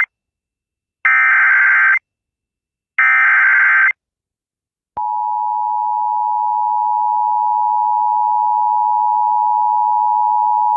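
Emergency Alert System signal: two buzzy one-second digital header bursts a second apart, each the same as the last (the SAME data header that carries the alert code). About five seconds in, the long steady attention tone starts and holds.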